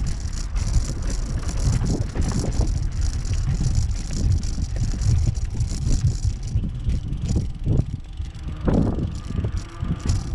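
Footsteps of a person walking outdoors, under a low, gusty rumble of wind buffeting the camera's microphone.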